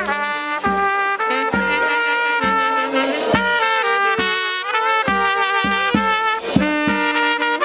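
Village wedding band playing a lively Ukrainian folk tune: trumpet and saxophone carry the melody together over accordion, with a drum and cymbal keeping a steady beat.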